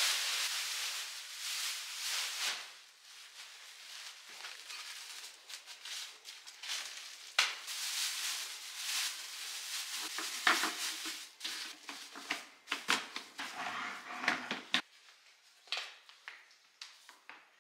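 Plastic bin bags rustling and crinkling as a full trash bag is lifted out and a new liner is fitted into a kitchen bin, with scattered light knocks and clicks.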